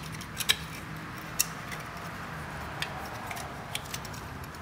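A few short, sharp metallic clicks as a caliper cover's metal mounting clip and bracket are slid into place on a Brembo brake caliper, two close together about half a second in and then scattered fainter ones, over a faint steady hum.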